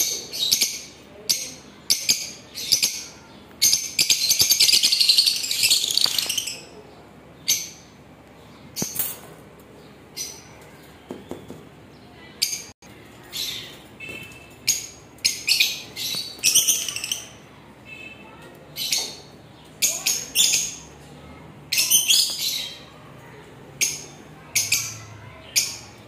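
Caged lovebirds calling: many short, sharp, high-pitched chirps and shrieks, with a run of rapid chattering from about four to six seconds in.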